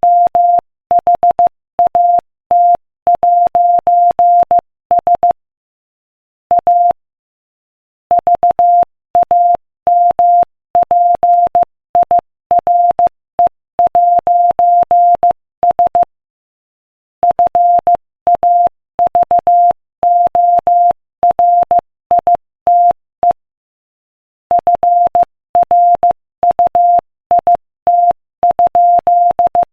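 Morse code sent at 15 words per minute: a single steady beep tone keyed on and off in short dots and longer dashes, with pauses of about a second between words.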